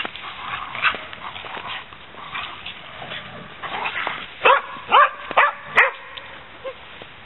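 A dog barking four times in quick succession, sharp high barks about halfway through, while the dogs play in the snow.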